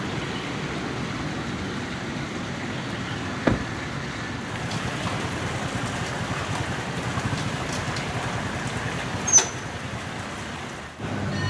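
Steady outdoor road-traffic ambience, an even rush of passing vehicles, with a sharp click about three and a half seconds in and a louder one just after nine seconds.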